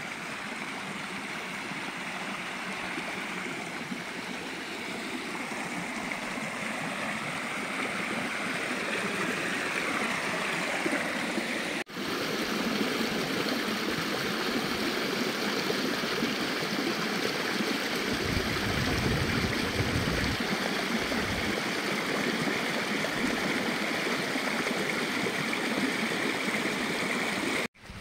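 A shallow mountain creek rushing over rocks, a steady sound that grows louder over the first dozen seconds; after a cut, a small cascade of water splashing down rock ledges, close and steady.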